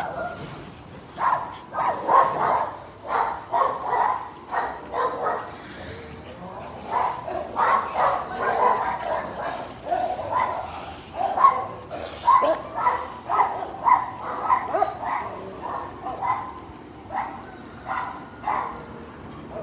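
A dog barking over and over in short, irregular bursts, with brief pauses between runs of barks.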